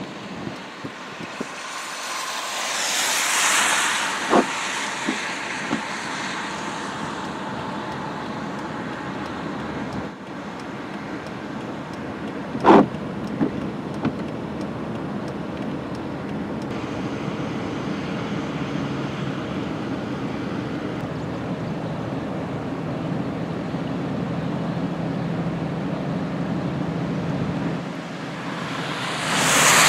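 Steady outdoor rush of road traffic, swelling as vehicles pass about three seconds in and again near the end, with a few sharp clicks, the loudest about thirteen seconds in.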